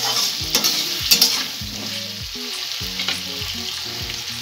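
Fried potato cubes sizzling in oil in a metal kadai while a spatula stirs them, mixing in salt and turmeric. The spatula scrapes and knocks against the pan several times in the first second or so and again about three seconds in.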